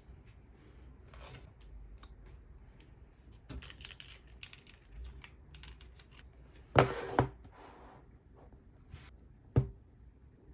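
Light clicks and taps of hands handling a new iPhone and its box, with two sharp knocks close together about seven seconds in and one more near the end.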